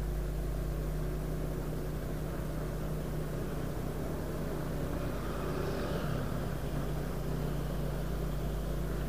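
A vehicle engine running steadily at an even, low speed under a low rumble of road and wind noise.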